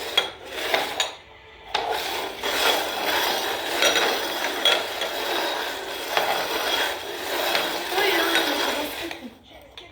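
Cups being slid and shuffled across a hard surface to hide a ball, a run of scraping and rattling with a short pause about a second in, dying away near the end.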